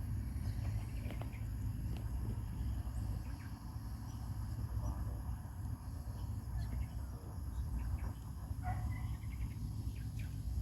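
Outdoor ambience: a steady low rumble with faint, scattered insect and bird chirps.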